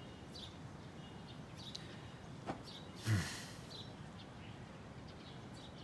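Faint background ambience with scattered small bird chirps, and a short breathy sigh about three seconds in.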